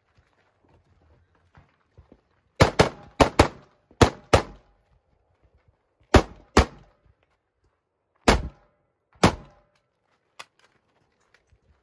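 Rapid gunshots from a shooter working a stage: six quick shots in three pairs about two and a half seconds in, then a pair, two more shots about a second apart, and one faint shot near the end.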